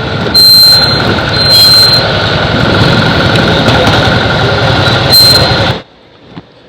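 Motorcycle riding at speed, heard through heavy wind buffeting on the camera's microphone, with the engine running underneath. The noise cuts off abruptly near the end.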